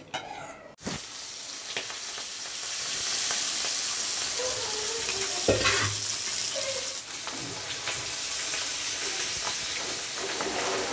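Masala-coated fish pieces frying in hot oil in a pan. A steady sizzle starts about a second in, with a single knock around the middle.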